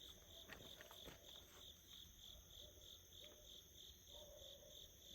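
Faint crickets chirping steadily, about three pulses a second, with a few faint small clicks about half a second and a second in.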